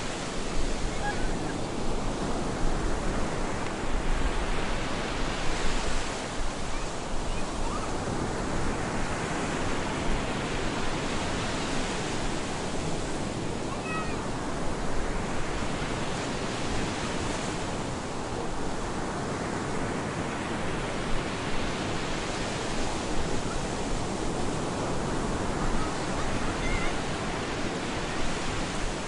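Stormy surf on a beach: waves break about every six seconds over a steady, continuous rush of water.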